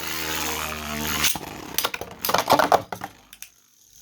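Two Beyblade spinning tops whirring in a stadium, then a sharp click a little over a second in and a quick run of loud clashes and rattles as they collide, dying away near the end.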